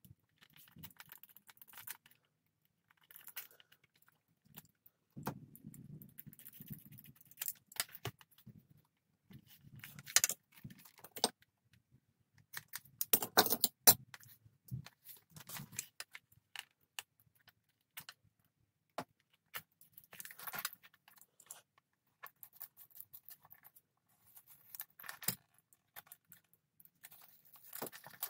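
Metal buckles and hardware on leather bracer straps clinking and rattling in short, irregular bursts as the straps are handled, with small clicks and scrapes between them.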